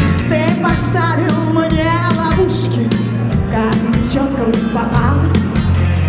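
Upbeat pop-rock music with a steady drum beat and singing.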